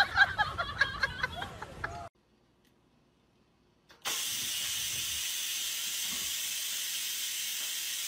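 Electric pressure rice cooker venting steam: a steady hiss that starts abruptly about four seconds in and runs for about four seconds. Before it, short high cries and scuffling for about two seconds, then a pause.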